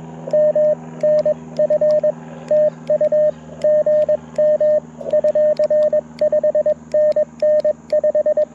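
Morse code (CW) from a Mountain Topper MTR4B V2 QRP transceiver heard through a small speaker: a single tone near 600 Hz keyed on and off in quick dots and dashes, with sharp clicks alongside the tones and a steady low hum underneath.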